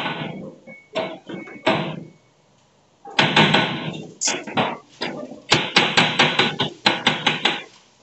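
Galvanized sheet-metal exhaust flue pipe being handled and fitted to the ceiling outlet: metal scraping, then a quick run of knocks and clanks, about five a second, in the second half.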